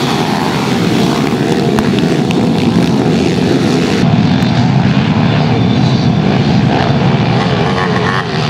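Many pitbike engines running hard together as a pack of racing motorcycles, overlapping into one continuous loud buzz with no single bike standing out.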